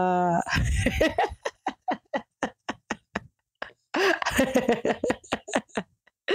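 A person laughing in rapid, short bursts, about five a second, for roughly three seconds; after a brief pause a second bout of laughter follows.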